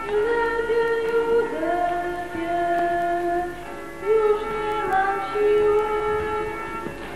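Music: a slow melody of long held notes over a sustained chord, with the notes moving in steps.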